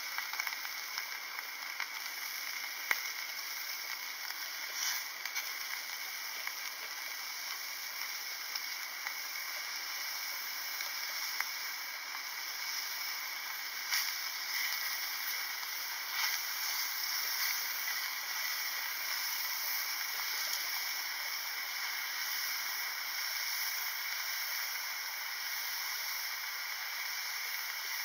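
Beef steaks sizzling in a frying pan over an Iwatani Junior Compact single gas burner: a steady hiss with scattered spattering crackles. About halfway through there is a brief louder crackle as the steaks are turned with metal tongs.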